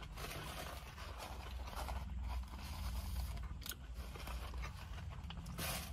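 Paper wrapper around a wrap crinkling and rustling as it is handled, with a few sharp crackles and a louder one near the end.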